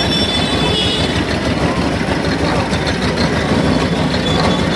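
Engine-driven sugarcane crusher running steadily, a continuous low mechanical hum and rattle.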